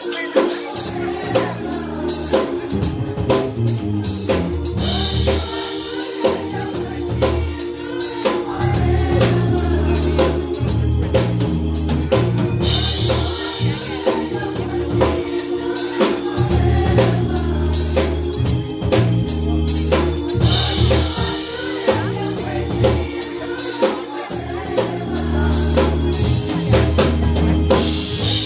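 Live gospel choir singing with a drum kit and bass, the drums keeping a steady beat with a cymbal swell about every eight seconds.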